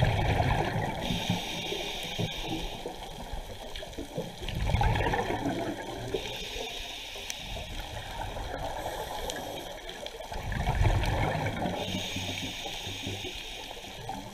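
Scuba diver breathing underwater through a regulator: three breath cycles, each a gurgling rush of exhaled bubbles followed by the hiss of an inhale through the demand valve.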